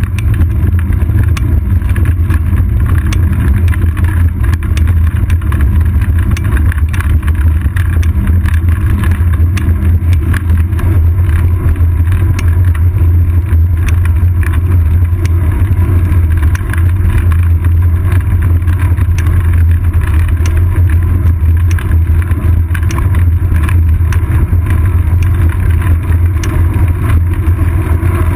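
Loud, steady low rumble of wind and road vibration on a seat-post-mounted GoPro Hero 2 camera on a moving bicycle, with scattered faint ticks.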